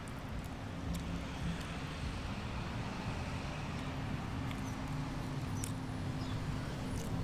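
Street traffic noise with the steady low hum of a vehicle engine running nearby.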